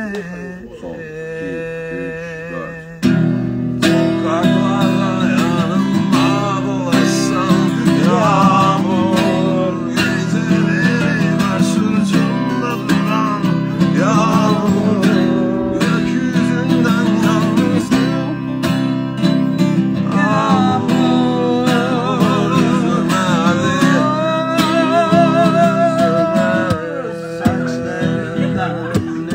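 Two acoustic guitars strummed together while a man sings a slow melody over them. The strumming comes in fuller and louder about three seconds in.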